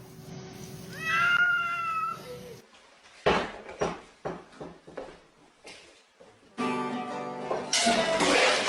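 A house cat meowing: one drawn-out meow about a second in. It is followed by several sharp knocks and then steady musical tones.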